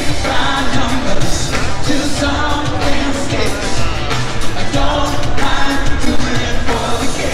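Live pop-rock song: a lead singer over a band with a steady driving beat.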